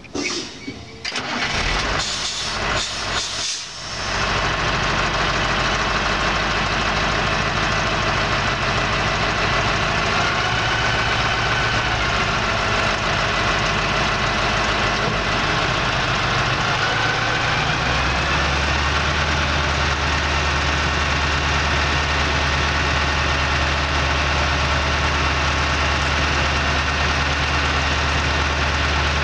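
Bobtail dump truck's engine cranked by the starter for about two seconds, catching about four seconds in and then running steadily. Around eighteen seconds in, the running engine's low note shifts up and holds.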